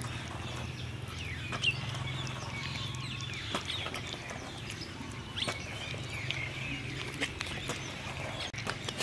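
A puppy eating soft rice mash from a plastic bowl: irregular wet chewing and lapping clicks.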